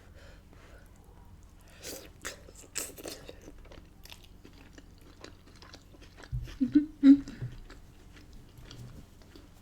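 Close-miked chewing and wet mouth sounds of someone eating rotisserie chicken in Cajun butter sauce, with scattered smacking clicks. The loudest cluster of sounds comes about seven seconds in.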